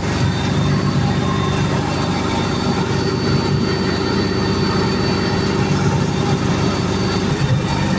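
International Harvester 1586 tractor's diesel engine running steadily under PTO load, driving a John Deere 530 round baler while its twine arms wrap the finished bale. A faint high steady tone joins about three seconds in.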